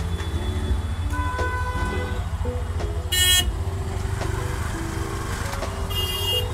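Road traffic around waiting auto-rickshaws: a steady low engine rumble, with two short vehicle horn honks, one about three seconds in and one near the end.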